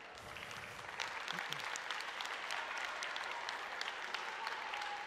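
Audience applauding, building up over the first second and then continuing steadily.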